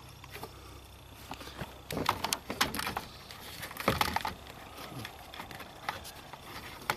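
Metal clicks and clinks of hand tools working bolts on a hybrid's high-voltage relay assembly. They come in a cluster about two seconds in and again around four seconds.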